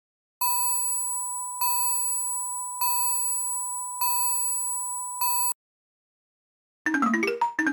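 Samsung SGH-C130 mobile phone ringtones. One is a single steady beep tone repeated about every 1.2 seconds, five times, the last cut short. After a brief gap, the next ringtone starts near the end with a quick run of melody notes.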